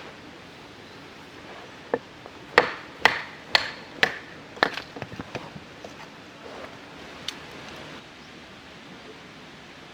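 A series of sharp wooden knocks, about two a second: a knife being batoned through very hard firewood. After about six strong strikes they thin out to a few lighter taps.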